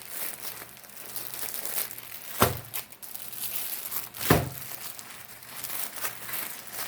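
Plastic-covered diamond painting canvases and packaging crinkling as they are handled and unrolled, with two sharper knocks about two and a half and four and a half seconds in.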